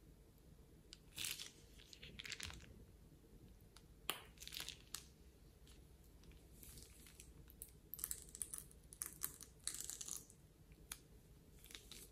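Plastic piping bag of orange slime being squeezed onto soft slime: faint crinkling and wet squishing in short bursts, about seven times.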